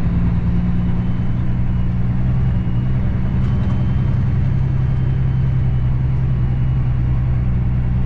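The Cummins ISX diesel engine of a Kenworth W900L semi truck, running steadily as a deep, even drone heard from inside the cab.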